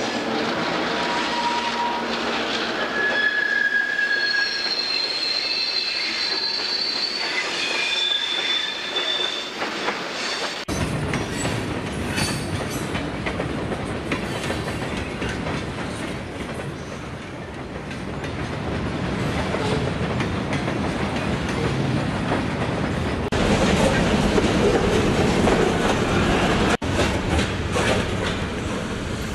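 HO scale model freight cars rolling along the track, with several short high wheel squeals in the first few seconds, then a steady rolling rattle of wheels on rail that grows louder near the end as the caboose passes.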